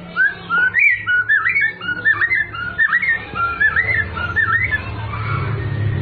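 White-rumped shama singing: a fast run of clear, curving whistled notes that stops about five seconds in. A low rumble builds near the end.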